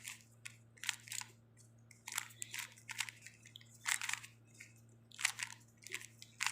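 A Rubik's cube being turned fast by hand: an irregular run of short plastic clicks and clacks as the layers snap round.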